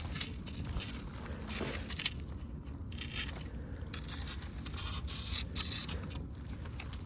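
Irregular scraping and rustling noises over a low rumble.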